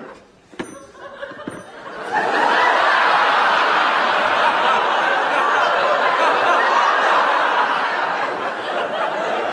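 Audience laughing, breaking out about two seconds in and going on loudly and steadily, with a couple of small clicks just before it.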